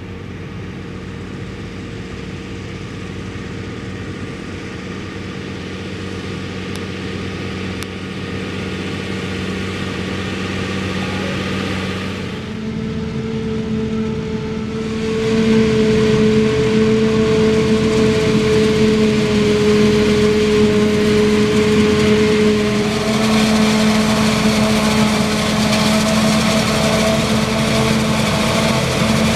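Diesel engines of a self-propelled forage harvester and a Case tractor working in a maize field: a steady hum that slowly grows louder. About 12 seconds in it changes abruptly to a louder, fuller running sound, with a steady high hum from the harvester chopping maize and blowing it into the trailer.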